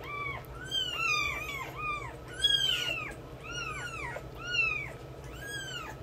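Newborn kittens mewing over and over: about a dozen short, high-pitched cries that rise and fall, some overlapping one another.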